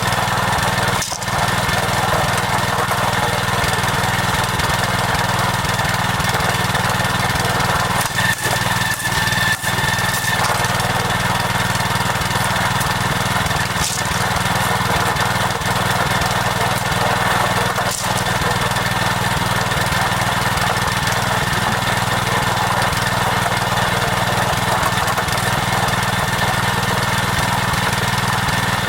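Small engine running steadily at constant speed, with a steady high whine over it.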